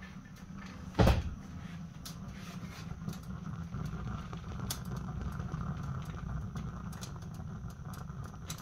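Fire burning in a homemade steel wood-and-pellet stove: a steady low rumble with scattered sharp crackle ticks. A single loud thump about a second in.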